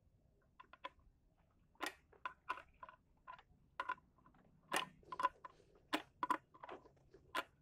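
Irregular sharp clicks and crunches of hands working motorcycle horn wiring and its plastic connectors, a few a second, sparse at first and louder and more frequent from about two seconds in.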